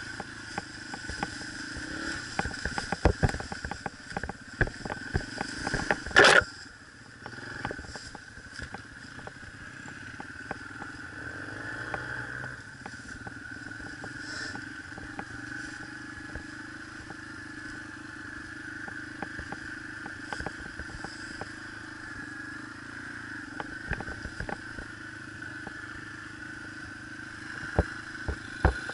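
Yamaha TTR125 dirt bike's single-cylinder four-stroke engine running steadily on a trail ride. Sharp knocks and clatter from the bike going over rough ground are heard through the first six seconds, the loudest about six seconds in, and a few more come near the end.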